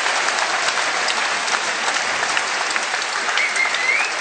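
Arena crowd applauding, many hands clapping steadily, with one short high squeak that wavers and then rises near the end.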